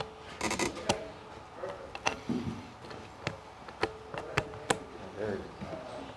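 Hands fitting the wiring harness and clips onto an ABS modulator's solenoids: a string of sharp clicks and taps of plastic and metal parts, with a quick rattling run of clicks about half a second in.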